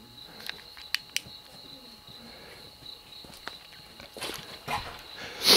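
Crickets chirring steadily at night, with a few sharp clicks in the first couple of seconds. Louder rustling footsteps build up near the end.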